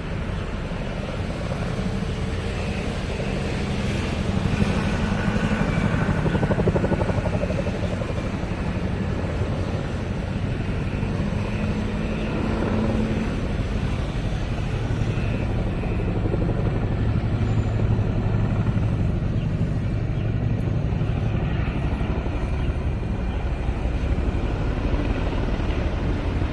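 Military aircraft flying over in a rehearsal flypast: a continuous engine noise that swells loudest about five seconds in and rises again later.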